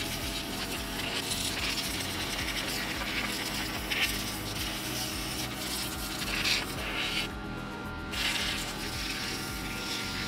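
Compressed air from a blow gun on a pancake air compressor's hose hissing into a computer case. It goes in uneven surges, stronger at about 4 s, 6.5 s and 8 s in, with a steady tone underneath.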